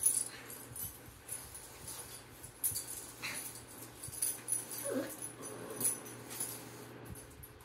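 Small dog squirming and rolling on its back on a carpet, its body rubbing and scratching against the pile, with a couple of short falling whines, the clearest about five seconds in.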